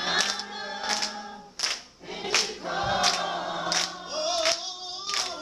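Church congregation singing a gospel chorus together, with hand claps keeping a steady beat.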